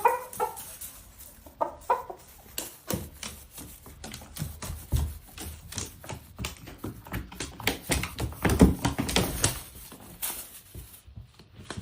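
A chicken gives a few short pitched calls in the first two seconds. Then comes a long run of rapid clicks, knocks and low thumps that dies away near the end.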